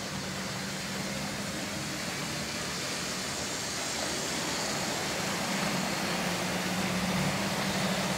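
OO gauge model train running on the track: a low electric motor hum with wheel noise on the rails, slowly getting louder as the train gets moving.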